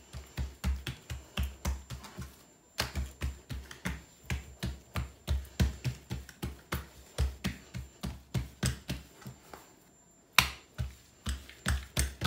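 Buttered palms patting and pressing msemen dough flat against a countertop: quick soft slaps, about three a second, with two short breaks.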